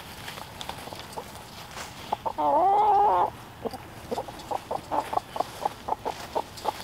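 Backyard chickens clucking, with a quick run of short clucks in the second half. A little over two seconds in, one chicken gives a loud, drawn-out wavering call lasting about a second.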